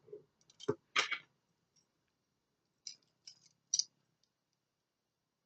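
Metal handcuffs clicking as they are handled and the double lock is set with the key's pin: a few light metallic clicks, the sharpest ones about three to four seconds in.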